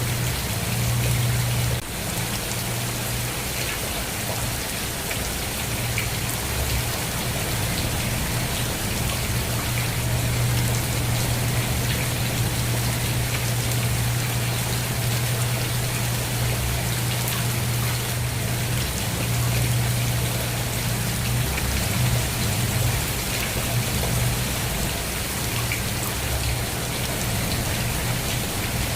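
Steady heavy rain falling, an even patter of drops, with a constant low rumble beneath it.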